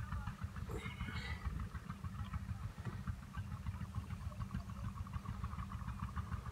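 An engine running steadily at idle, a low rumble with a light regular ticking.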